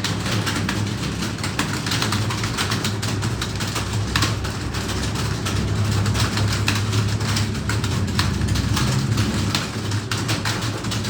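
Many computer keyboards clattering at once, a roomful of people typing fast and irregularly during a timed typing test, over a steady low hum.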